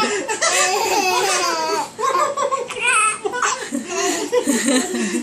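People laughing hard, with a young child's high giggles among them and a brief pause about two seconds in.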